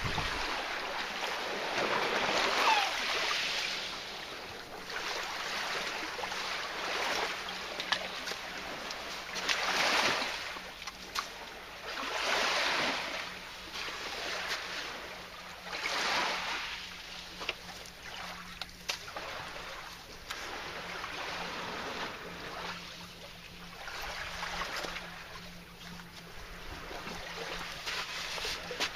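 Sea waves washing in on the shore, the hiss swelling and fading every two to three seconds, over a steady low hum, with a few sharp ticks.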